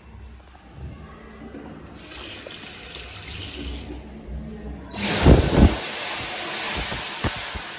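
Dyson Airblade V hand dryer switching on about five seconds in as a hand goes under it, then blowing a steady, loud hiss of air with a thin high whine on top. For the first half second the air jet buffets the microphone.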